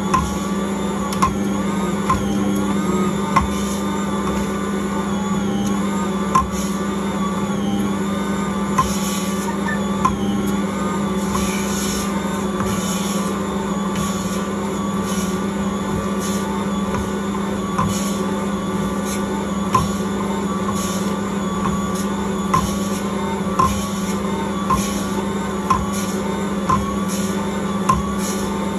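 Ankarsrum Original Assistant stand mixer running steadily, its motor humming with a wavering whine as it kneads a ball of pizza dough. A short knock comes about once a second as the dough is worked against the roller and bowl.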